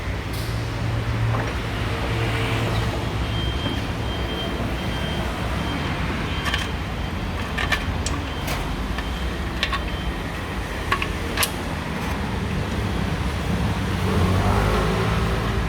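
Steady low workshop hum with occasional sharp clicks and clinks of hand tools on metal during suspension work.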